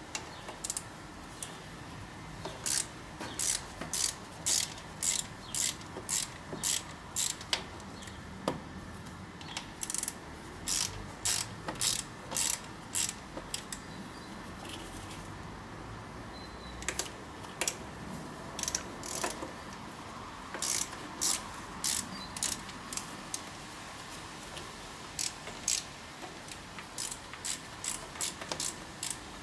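A hand ratchet wrench clicking as it turns the throttle body's mounting bolts on a Ford Duratec-HE engine. The sharp clicks come in runs of about two or three a second, with short pauses between the runs.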